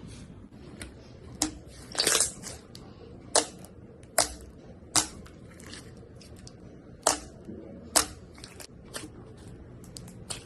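Slime being squeezed and pressed by hand, giving irregular sharp pops and crackles, with a longer crackle about two seconds in.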